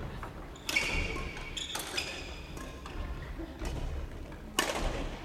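Badminton rackets hitting shuttlecocks: a few sharp hits echoing in a large hall, the first about a second in, another about two seconds in and the last near the end.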